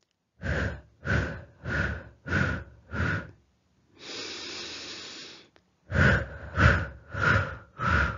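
A person demonstrating the blowing breathing technique for the peak of a labour contraction: a run of five short, quick blows out, a longer breath in about four seconds in, then another run of short blows.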